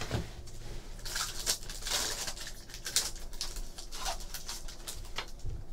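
Trading card pack wrapper crinkling and rustling, with many small crackles, as the pack is torn open and the wrapper pulled off the cards.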